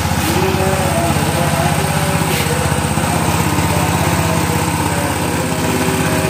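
Small single-cylinder petrol engine running steadily at a fast idle, driving a grass chopper through a belt during a test run.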